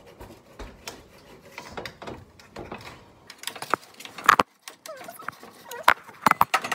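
Metal kitchen utensils clinking, scraping and clattering against a metal baking sheet as baked cookies are pried off it, in quick irregular clicks with a few louder clanks. Near the end come knocks from the phone being handled.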